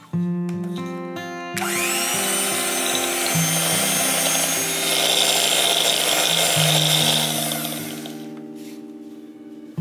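Electric hand mixer with twin wire beaters beating softened butter and powdered sugar in a glass bowl. Its motor spins up with a rising whine about a second and a half in, runs steadily, then fades out near the end. Acoustic guitar music plays throughout.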